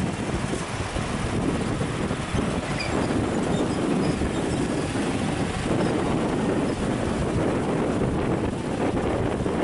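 Steady outdoor rumble of wind buffeting the microphone over vehicle noise, with no distinct tones or knocks.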